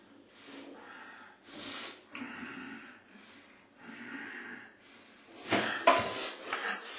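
A man breathing in short, noisy, uneven breaths while slumped over, followed about five and a half seconds in by a few loud knocks and clatter as he pushes himself up.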